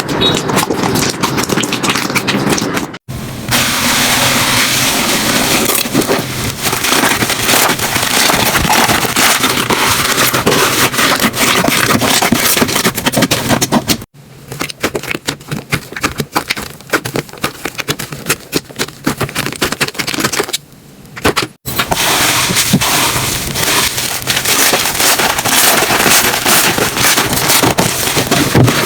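Slime being squeezed and worked, giving dense crackling and popping. The sound is in several segments with abrupt cuts, and a quieter stretch of sparser pops in the middle.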